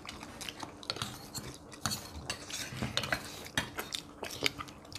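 Metal spoons clinking and scraping against ceramic bowls and plates during a meal, in a string of short, irregular clicks.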